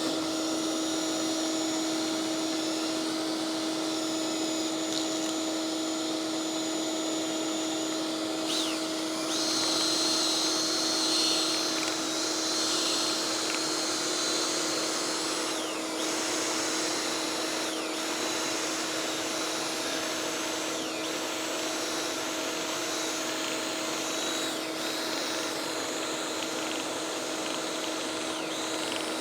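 Shop vacuum running steadily with an even motor hum, sucking lint out of a clogged dryer vent duct. For several seconds about a third of the way in, a drill spinning the vent-cleaning brush on its rods adds a higher whirring whine.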